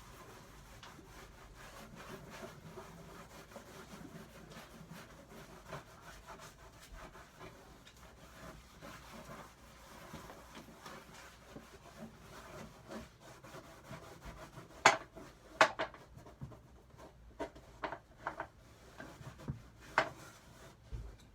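Cloth rubbing back and forth over the wood of an old toolbox, working wax into it. Later comes a run of sharp knocks and clicks, the first the loudest.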